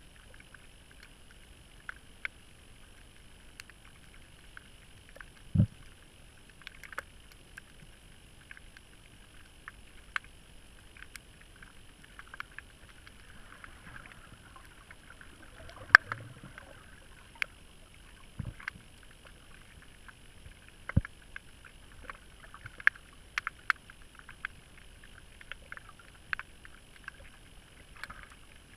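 Underwater reef ambience recorded through a camera's waterproof housing: a steady muffled hiss with scattered sharp clicks and a few low knocks.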